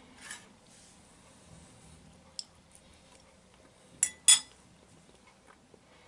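Metal fork clinking twice against a ceramic bowl as it is set down, about four seconds in, after a single lighter tap a couple of seconds earlier.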